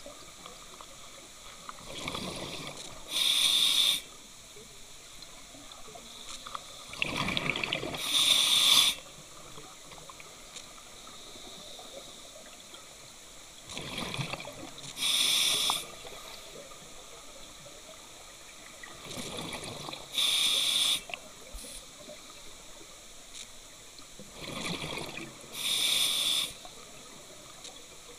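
A scuba diver breathing through a regulator underwater, about five breaths at a steady five to six seconds apart. Each breath is a gurgling rush of exhaled bubbles and a flat hiss of about a second from the demand valve.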